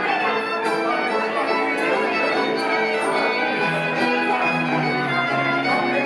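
Live acoustic bluegrass band playing: fiddle with long bowed notes over banjo, acoustic guitar and dobro.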